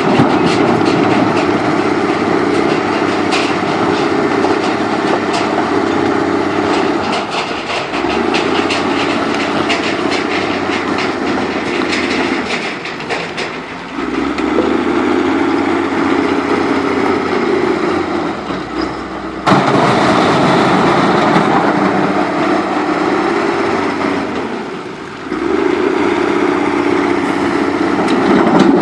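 Heavy diesel construction machinery running steadily, its engine note dropping away briefly twice. Through the first half there is a dense rattling clatter, as of stone and metal.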